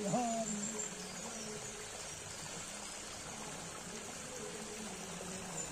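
Shallow water running and rippling over a sandy bed, a steady rushing hiss. A short pitched sound, rising then falling, comes right at the start.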